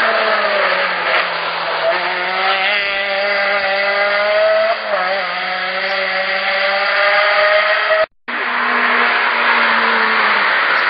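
Race car engines at high revs on a hill climb: a Peugeot 206 rally car's engine pulls away up the road, its pitch climbing with a short drop about halfway. After a sudden break just past two-thirds of the way, a Renault Clio rally car's engine comes up at full throttle.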